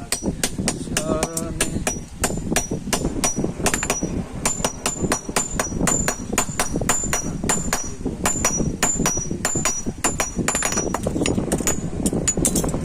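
Blacksmith's hammers striking iron on an anvil in a fast, steady rhythm, about three to four blows a second, each blow with a short, high metallic ring. Voices are heard faintly in the background.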